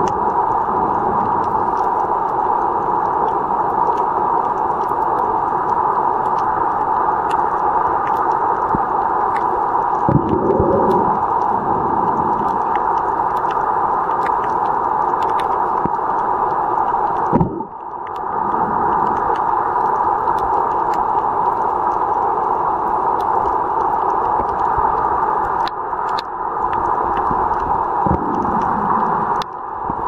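Steady, muffled water hiss picked up by a camera underwater, with faint scattered clicks. It cuts out briefly twice, about two thirds of the way through and again near the end.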